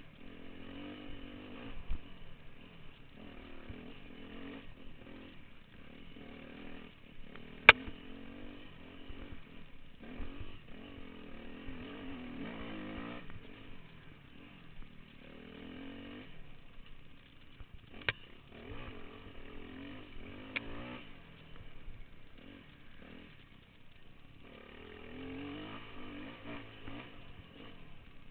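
Off-road motorcycle engine revving up and down as the bike is ridden hard along a trail, easing off a couple of times. Several sharp knocks stand out over it, the loudest about eight seconds in.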